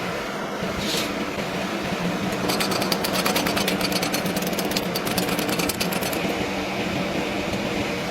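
Electric arc welding: a dense, rapid crackle from the arc for about three and a half seconds, starting about two and a half seconds in, over a steady machine hum.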